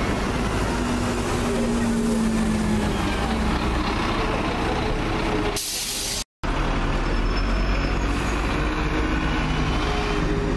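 Diesel buses moving off and passing close by, their engines rising and falling in pitch. About five and a half seconds in, a short loud hiss of released air, then the sound drops out for a moment before another bus engine is heard.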